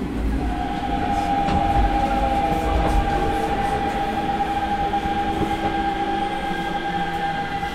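Hanshin 9000 series electric train running, heard from inside the car: the rumble of wheels on rail, with a steady whine that sets in about half a second in and holds one pitch.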